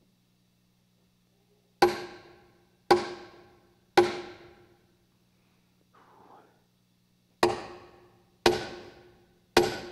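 A hammer striking a nail into a wooden cross: three blows about a second apart, a pause, then three more, each with a short metallic ring.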